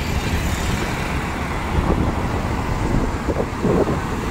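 Riding a two-wheeler through city traffic: its engine running steadily under road and traffic noise.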